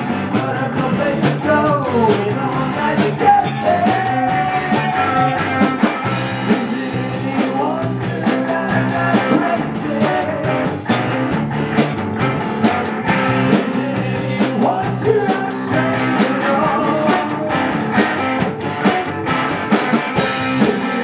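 Rock-and-roll song with guitar, drums and a singing voice, played as background music over the end credits.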